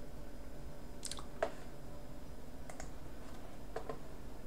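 A few short, sharp computer mouse clicks, some in quick press-and-release pairs, about four spread over the few seconds, over a steady low background hum.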